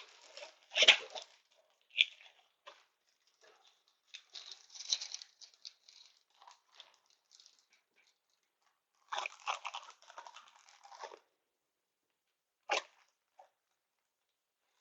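Crackling rustles and light clicks of small parts and their plastic packaging being handled, in two longer spells of rustling with a single sharp click near the end.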